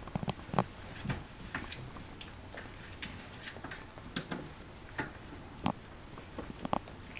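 A litter of four-week-old golden retriever puppies wrestling in a pile: irregular scuffles, knocks and claw clicks and patter on a smooth floor, a few sharper clicks standing out now and then.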